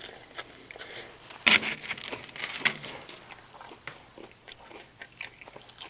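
A person eating, biting and chewing crunchy food, with irregular crunches and mouth clicks. The loudest cluster comes about one and a half seconds in, and another follows shortly after.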